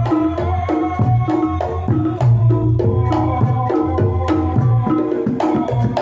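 Reog Ponorogo gamelan music: kendang drums and low gong strokes keep a steady driving beat under repeating pitched metallophone notes, with a slompret shawm line above.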